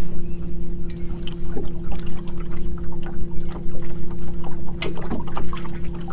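Electric trolling motor humming steadily as the boat is turned, with scattered small clicks and knocks over it.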